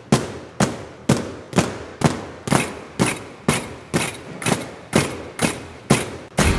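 Steady rhythmic percussion: sharp hits about two a second, each with a short ringing tail, keeping an even beat.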